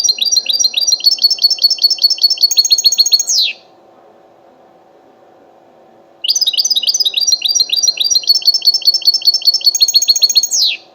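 European goldfinch singing its rapid trilled 'btbta' phrase: a fast run of high repeated notes ending in a quick falling note, heard twice with a pause of about three seconds between.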